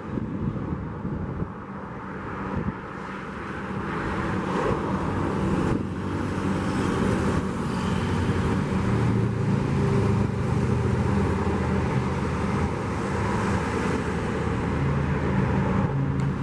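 Diesel engines of a coupled convoy of yellow rail track-maintenance machines (dynamic track stabilizer, tamping machine and ballast regulator) running as the train passes close by on the track. The engine sound grows louder about four seconds in and then stays steady.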